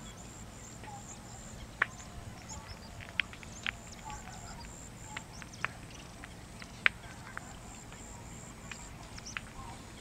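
Outdoor wetland ambience: a faint, steady, high-pitched trill with a few faint short calls, broken by about half a dozen sharp brief clicks, the loudest about two seconds in and about seven seconds in.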